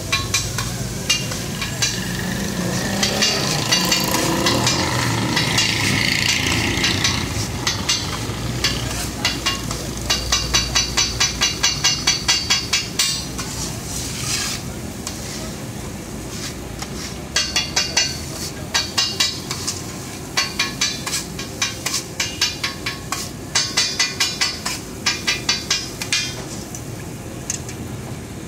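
A flat metal spatula chops and scrapes egg and shami kabab mix on a large flat steel tawa griddle over a steady sizzle of frying. Through the second half it comes in several runs of rapid clanking strikes, about four a second.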